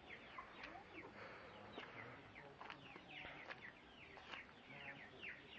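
Faint, busy calling from a flock of chickens: many short, falling peeps overlapping, with no pause.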